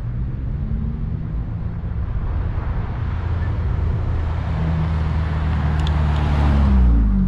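Subaru WRX's turbocharged boxer engine through an ETS cat-back exhaust, running as the car drives up, growing louder, with its note falling in pitch near the end as it comes past.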